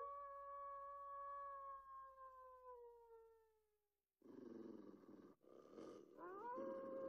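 A long howl that holds and then slowly sinks in pitch, fading out about four seconds in. It is followed by a rougher, noisier call, then a second howl that rises and holds steady.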